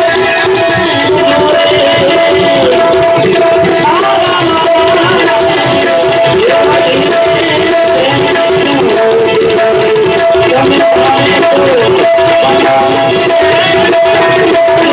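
Tabla playing a steady accompaniment rhythm in Indian devotional music, under a held note that does not change and a melody line that slides up and down.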